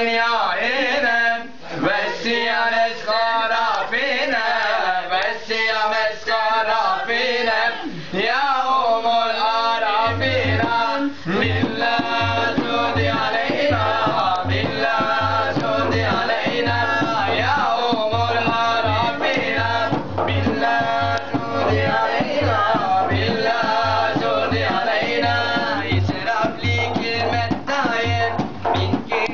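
Men singing an ilahi, a Turkish Islamic devotional hymn. About ten seconds in, a steady low drum beat joins the voices.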